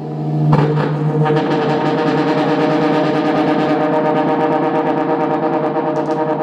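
Electric guitar noise through effects and a feedback-sustaining device: a sharp attack about half a second in with a low note that fades after about a second, then a dense, loud, sustained drone of several held tones with a fast, even pulse.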